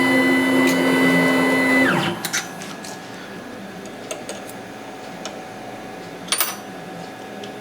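Small CNC machine's motor running with a steady whine, then winding down and stopping about two seconds in. A quieter hum remains, with a few sharp clicks, the loudest about six seconds in.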